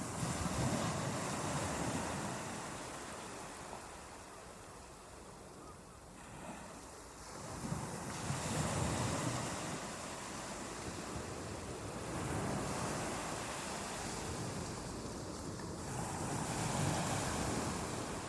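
Ocean surf washing onto a beach: waves swell and ebb in a slow cycle, with four louder surges spaced several seconds apart.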